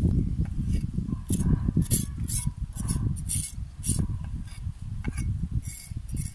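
A knife scraping and cutting a whole fish on a plastic cutting board, in short, irregular rasping strokes over a low rumble.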